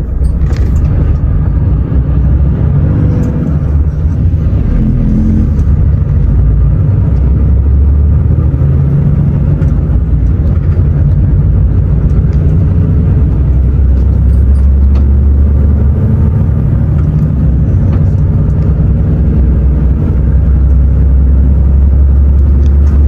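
Volvo truck's diesel engine and road rumble heard from inside the cab as the truck pulls away and drives on: a steady low drone that grows fuller about a third of the way in.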